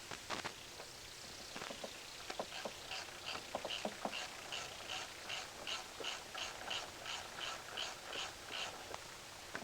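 A few light clicks and clinks in the first seconds, then a dog panting steadily, about three breaths a second.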